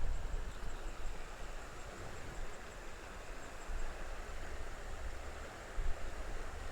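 Steady rush of flowing creek water, with wind rumbling on the microphone.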